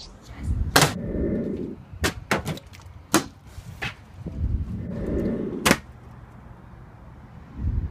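A plastic water bottle knocking sharply against a hard surface about six times, with low rumbling between the knocks.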